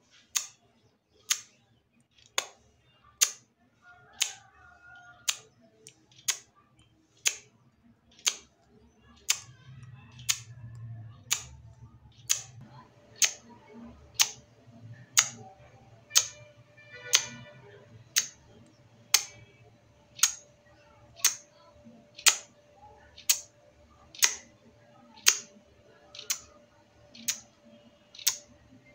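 A person imitating a wall clock's tick with sharp mouth clicks, about one a second, kept in time with the clock's second hand.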